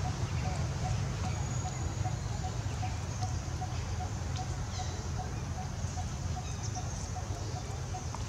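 Outdoor background: a steady low rumble with a faint, regular high pip about three times a second and a few light rustles.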